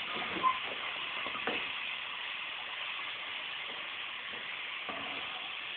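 Seasoned chicken pieces sizzling in hot oil and curry in a pot, a steady frying hiss, with a couple of light knocks in the first two seconds as a wooden spoon stirs them.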